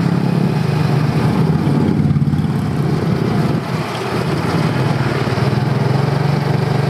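Small motor scooter engine running steadily while riding along a street, with road and wind noise. The engine note eases for a moment a little past halfway, then picks up again.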